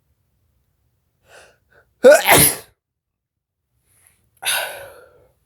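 A man sneezes hard about two seconds in, after a short faint in-breath, and a second, softer burst of breath follows near the end. The sneezes are set off by sniffed Chhinkni, a herbal sneezing powder.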